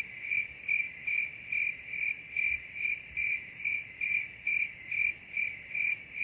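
A cricket chirping steadily, short high chirps at one pitch repeating evenly at about two and a half a second.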